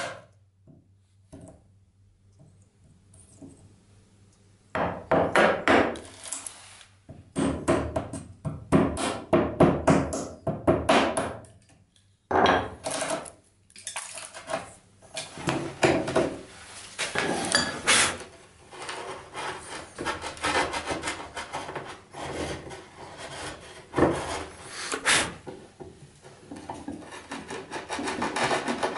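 Bench chisel pushed by hand, paring and scraping waste out of a notch in the edge of a wooden board, with wood fibres cracking and splitting in many short strokes. It is mostly quiet for the first few seconds, then the chiseling goes on in bursts of strokes.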